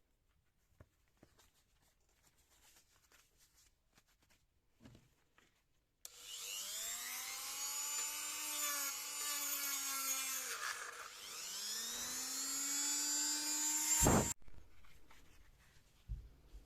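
A small power tool's electric motor runs for about eight seconds, starting about six seconds in. Its whine rises, sags about halfway through and climbs again, then cuts off abruptly. Faint clicks and handling come before it.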